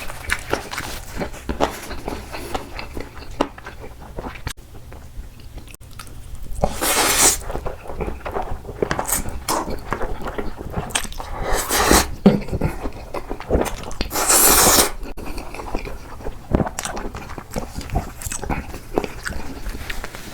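Close-miked eating: a person biting and chewing food with many small wet clicks, and three louder noisy bursts of biting or slurping spread through the stretch.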